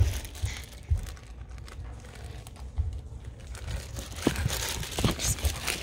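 Phone microphone handling noise: rustling and rubbing with irregular soft low bumps as the phone is moved about in the hand.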